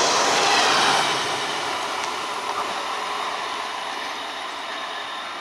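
Indian Railways express passenger coaches running past at speed, their wheels loud on the rails. The noise drops about a second in and then fades steadily as the train pulls away.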